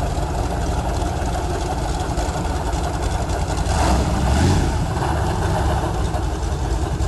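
Motorboat engine running steadily under way, with a constant rush of noise over it.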